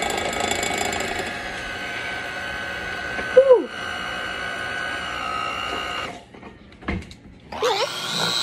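Electric hand mixer running at low speed, its beaters churning cream cheese and sugar in a glass bowl. It cuts off about six seconds in, then starts again near the end with its pitch rising as it speeds up. A brief, loud voice-like whoop comes about three and a half seconds in.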